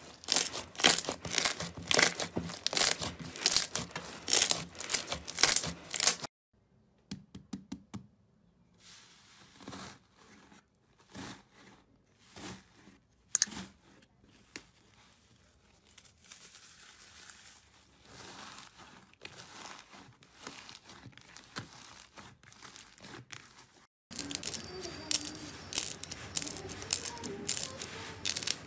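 Hands squeezing and pulling sticky slime, a dense run of wet crackling and popping. After a cut about six seconds in, the sound drops to quieter, scattered crunching and crackling as crunchy slime is broken up and pressed. From about 24 seconds the crackling and squishing becomes rapid again as a sheet of soft slime-covered balls is squeezed.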